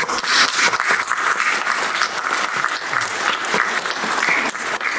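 Congregation applauding: many people clapping in a steady, dense applause.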